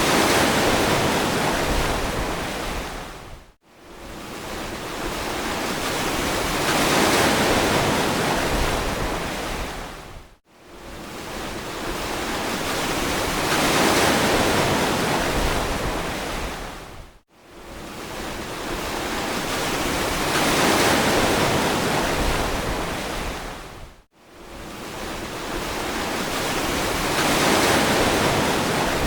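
Ocean surf washing on a beach, each wave swelling and fading in a slow cycle about every seven seconds. Each cycle ends in a brief, abrupt drop to near silence.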